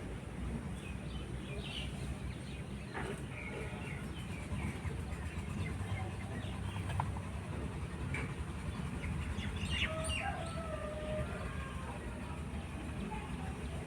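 Birds calling in short scattered chirps, with a longer, fuller call about ten seconds in, over a steady low background rumble.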